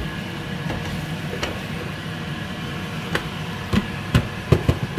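Wooden spoon stirring a thick chicken curry in a stainless steel pan, with faint scrapes and taps against the pan over a steady low hum. Several louder knocks come close together near the end.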